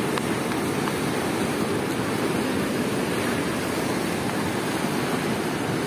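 Fast, turbulent water rushing through a sluice gate and churning at the foot of a concrete weir: a steady rushing noise.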